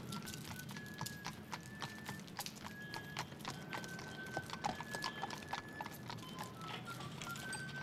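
Horses' hooves clip-clopping on cobblestones as two horses walk past, an irregular run of sharp clops. Thin long whistled notes sound over it.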